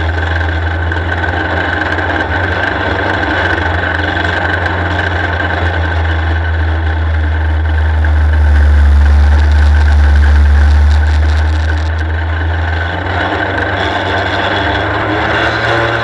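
Superstox race car engine heard from the cockpit, running steadily at low revs as a deep drone that swells a little about halfway through.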